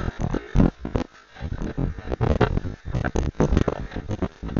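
Running footsteps through grass and leaf litter, with the body-worn camera jolting and rubbing at each stride: a run of uneven thuds and rustles.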